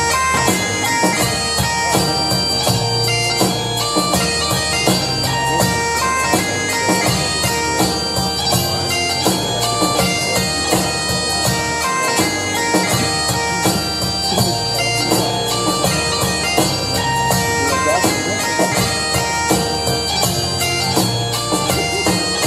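Bagpipe music: a pipe tune of held, changing notes played over steady drones.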